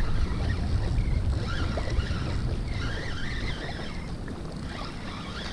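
Wind buffeting the microphone as a steady low rumble, over moving water from the surf or current.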